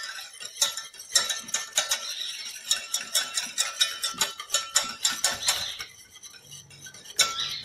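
Wire whisk beating eggs in a stainless steel bowl: quick, regular metallic clinks against the bowl, about three to four a second. They thin out and stop about six seconds in, then a few last clinks near the end.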